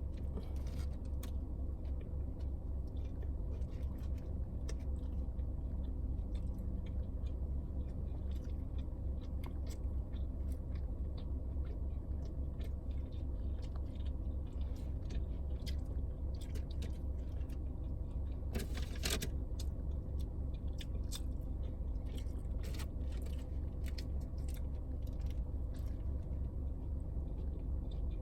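Chewing and biting mouth sounds, with scattered short wet clicks and crackles, over a steady low hum.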